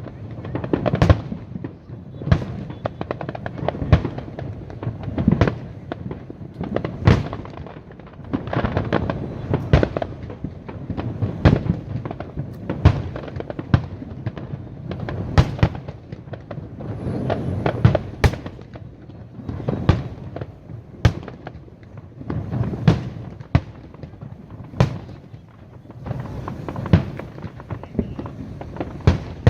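Aerial fireworks display: shells bursting with sharp bangs every second or two, with crackling and rumble between them.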